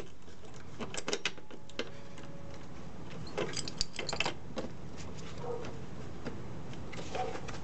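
Metal wrenches clinking and clicking against a brass ball valve and its pipe fitting as an adjustable wrench and a pipe wrench are set in place to hold the connector and tighten the valve: a few clicks about a second in and a quick cluster of clinks around four seconds in.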